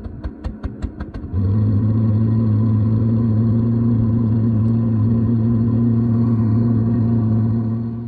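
Diesel air heater starting: a quick series of sharp clicks, then from about a second and a half in a loud, steady hum as the burner fires and runs.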